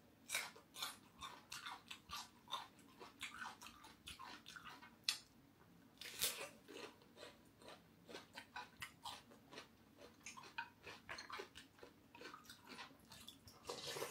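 Close-up crunching and chewing of raw cucumber, a run of crisp crackles, with louder bites right at the start and about six seconds in.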